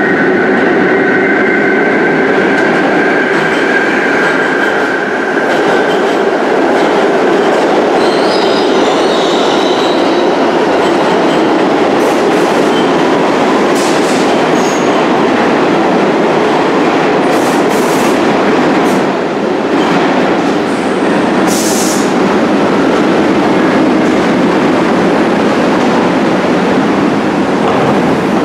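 New York City subway train on the Lexington Avenue Line running through the station, a loud steady rumble of wheels on rail. A high whine fades out over the first few seconds, and a few short sharp clicks and hisses come in the second half.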